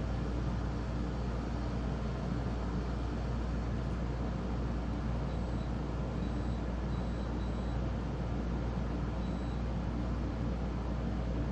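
Pelonis 50-pint dehumidifier running: a steady, even hum of its fan and compressor, heaviest in the low end. A few faint, short, high-pitched beeps come through in the middle.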